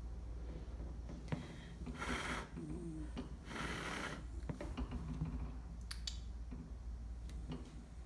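Senior black Shiba Inu snoring in its sleep: two noisy snoring breaths about two and three and a half seconds in, with faint low snore tones between them.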